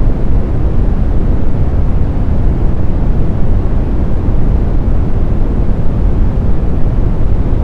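Brown noise: a steady, deep hiss with most of its weight in the low end, with no tones, rhythm or changes.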